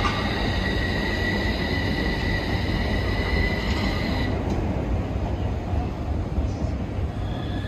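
A train or tram passing close by, with a low steady rumble and a high squealing whine that cuts off about four seconds in.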